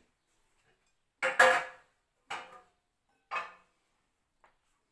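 Dishes being handled and set down: three short clattering knocks about a second apart, the first the loudest, then a faint tick near the end.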